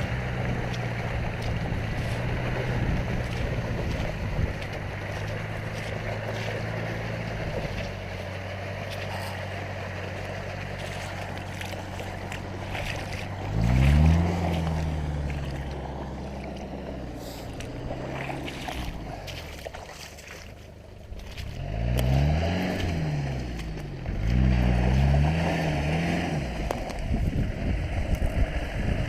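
Land Rover Discovery's 300 Tdi 2.5-litre four-cylinder turbodiesel running steadily, then revved hard several times, with the pitch rising and falling: once about halfway through, and twice more in quick succession near the end.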